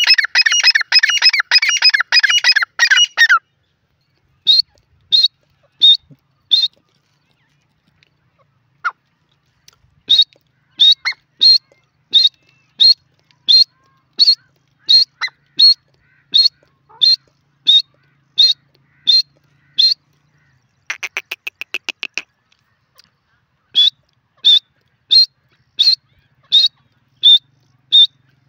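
Grey francolin calling: a rapid, loud chattering burst at first, then a long series of short, evenly spaced high notes, about one and a half per second. About two-thirds of the way through, the notes are broken by a brief rapid rattle.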